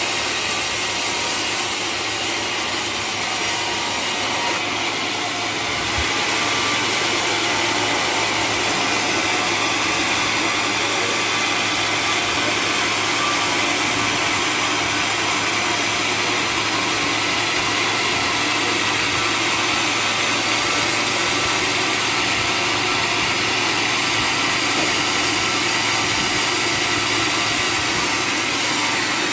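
Sawmill blade cutting steadily through waru (sea hibiscus) hardwood, with the drive motor humming beneath.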